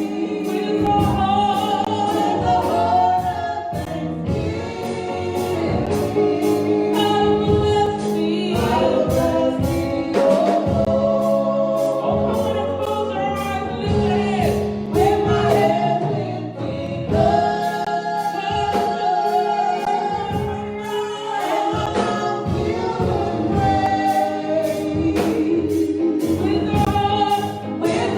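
Gospel worship song: a choir of voices singing together over instrumental backing with regular percussive strokes.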